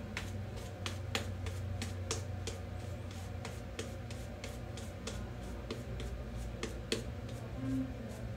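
Shaving brush lathering on the face: wet brushing with many small, irregular crackling clicks, several a second, over a low steady hum.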